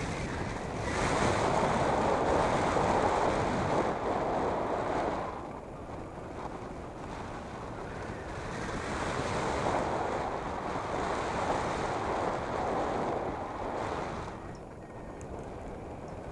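Wind rushing over the microphone of a hang glider in flight, a steady rush that swells and eases: louder from about a second in to about five seconds, again through the middle, quieter near the end.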